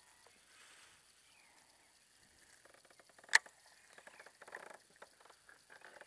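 A single sharp click a little over three seconds in, then a run of faint, irregular ticks and rattles: a baitcasting reel being engaged and cranked on the retrieve.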